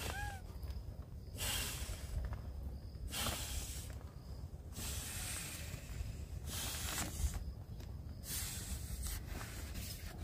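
Breaths blown by mouth into the valve of an inflatable sleeping pad, a series of short hissing puffs of air about every one and a half seconds as the pad is inflated.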